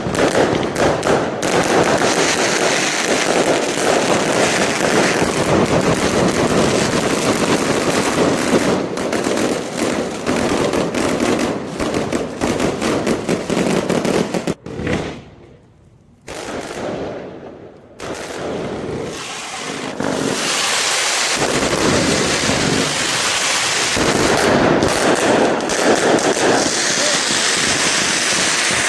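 Fireworks display: a dense run of rapid bangs and crackling, which drops off suddenly about halfway through for a few seconds and then comes back.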